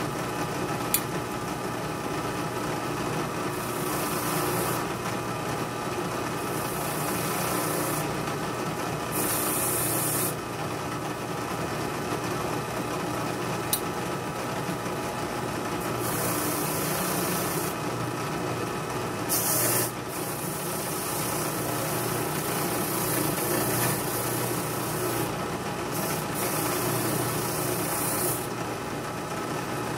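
Motor-driven wire wheel running steadily, scrubbing rust and gunk off small steel pocket-knife parts, with repeated stretches of brighter hissing scrape as parts are pressed to the wheel, and a couple of sharp clicks.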